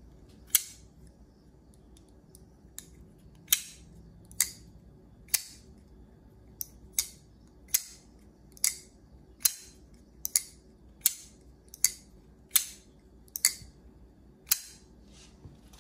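Spyderco Shaman folding knife with titanium scales being snapped open and shut over and over by hand: a run of about fifteen sharp metallic clicks, roughly one a second, a few of them doubled.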